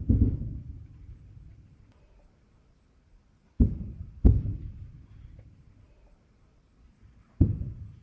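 Distant artillery blasts: four low booms, each dying away into a rumble over a second or two. One comes at the start, a pair less than a second apart falls just before the middle, and one comes near the end.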